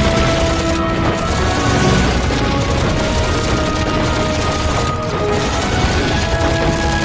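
Dramatic film score played over a battle soundtrack of massed rifle and machine-gun fire, with booms mixed in, continuous and loud throughout.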